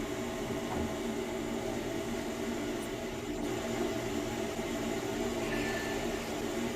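Steady machine hum of a running fan or motor, even in level, with a low drone under a soft airy hiss.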